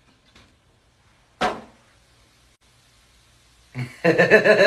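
A single sharp knock about a second and a half in, a plastic vinegar bottle set down on a metal tabletop. Near the end a voice breaks into a loud, wavering, sung-out cry.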